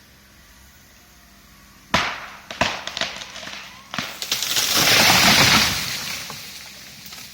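A tree being felled gives way: a sharp crack about two seconds in and several more snaps, then a long rushing crash of branches and leaves as it comes down, loudest about a second after the crash begins, before it fades out.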